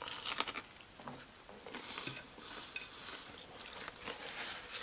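Light handling sounds: small clinks of a plate or cutlery and the rustle of a paper towel being picked up.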